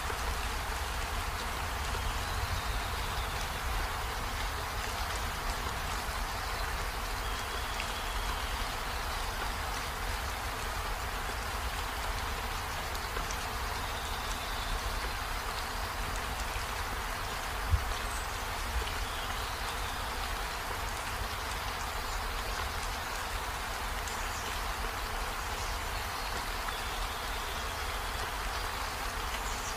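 Steady hiss, like rain or background noise, with a few faint short chirps and a single sharp click about eighteen seconds in.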